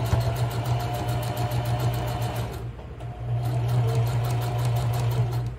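Electric sewing machine stitching, a rapid run of needle strokes over a steady motor hum. It eases off briefly about halfway, then sews on and stops near the end.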